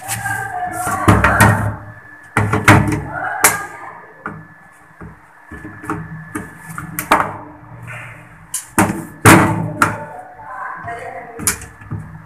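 Hard knocks and clacks of a toilet cistern being handled and worked with pliers, to free the lock that holds its cover on.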